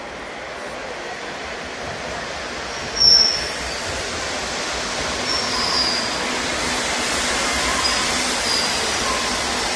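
Madrid Metro 2000A-series train running into an underground station, its noise building as it arrives, with a brief loud high-pitched squeal about three seconds in and intermittent high wheel squeals as the carriages pass.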